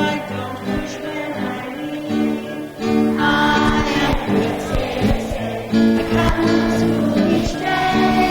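A group of school children singing a song together with instrumental accompaniment, fuller and louder from about three seconds in.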